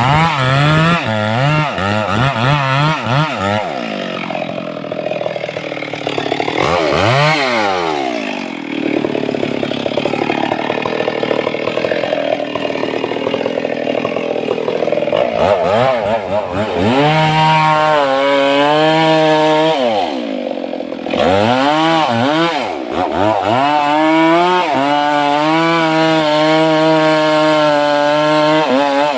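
Stihl MS 382 two-stroke chainsaw revved in short bursts, then pulled down under load as the chain cuts into sengon wood, then held at high revs with two brief drops in engine pitch.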